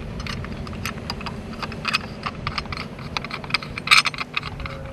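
Irregular small clicks and rattles of a surveying tribrach being handled and seated on a tripod head, with a sharper knock about four seconds in, over a steady low rumble.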